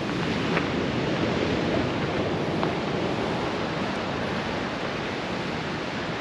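Steady rushing of wind and breaking sea surf.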